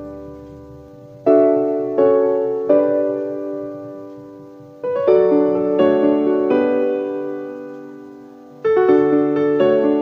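Background music: slow solo piano, notes and chords struck in small groups of two or three, each left to ring and fade.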